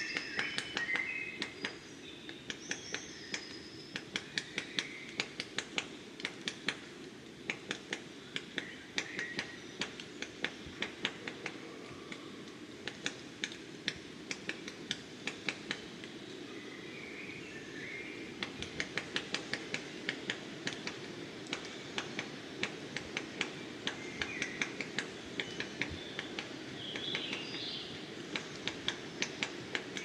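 Great spotted woodpecker pecking at a tree trunk: sharp, irregular single knocks, roughly one to three a second and sometimes in quick clusters, not a drumming roll. Short high bird chirps come now and then over a steady low background hum.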